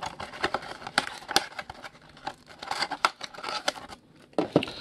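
Cardboard trading-card box and pack wrappers being handled: irregular rustling with many small sharp clicks.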